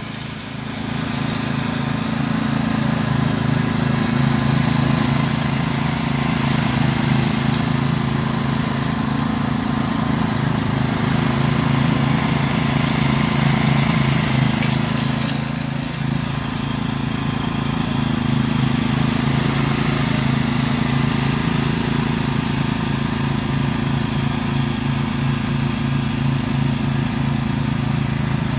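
Cub Cadet CC30H rear-engine riding mower running steadily as it drives over the lawn picking up leaves into its rear bagger, with a brief dip in level just past halfway.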